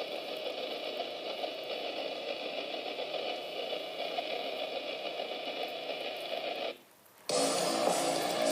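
A steady, static-like noise runs for almost seven seconds and then cuts off suddenly. After a short silence, electric-guitar rock music starts.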